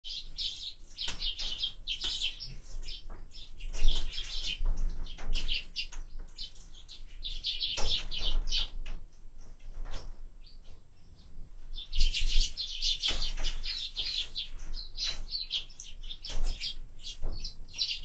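A flock of Eurasian tree sparrows chirping busily and continuously at a seed feeder, in louder bursts, with occasional sharp knocks as the birds land and peck on the feeder.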